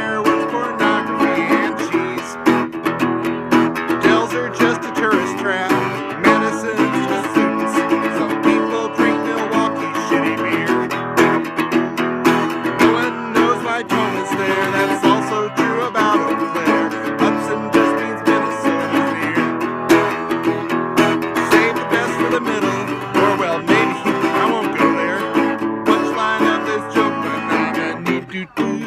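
Guitar playing an instrumental break: a fast run of picked and strummed notes at a steady level, with a brief break near the end.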